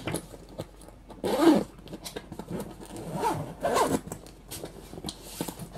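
Zipper on a Ju-Ju-Be Be Right Back backpack diaper bag being pulled in several short rasping strokes, the loudest about a second and a half in and two more near the three- and four-second marks.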